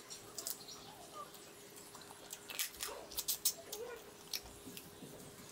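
Close-miked chewing of polao rice eaten by hand, with wet lip-smacks and mouth clicks that come thickest around the middle, over a faint steady hum.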